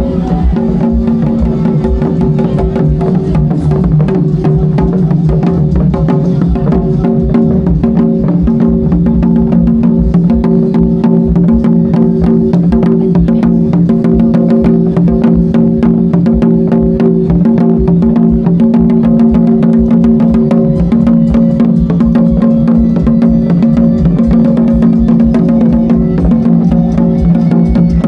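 Loud music with fast, dense drumming over steady sustained pitched tones, running without a break.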